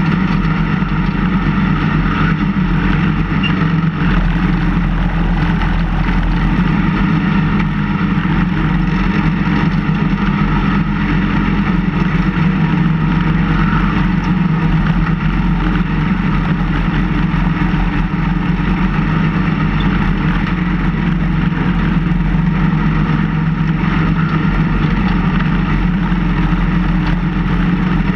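Engine of a snow-plowing vehicle running steadily while its front blade pushes snow, with no change in speed or pitch.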